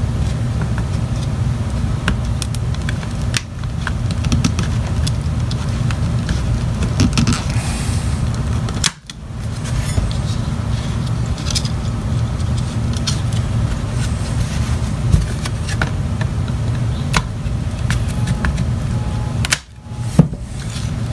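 A steady low rumble like a fan or air-conditioner hum, which drops out briefly twice. Over it are faint scattered clicks and scrapes of a plastic laptop battery case being handled and pried open.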